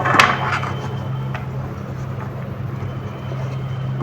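Mukbang eating sounds: a short crunchy bite-like burst just after the start, then a few faint clicks, over a steady low hum.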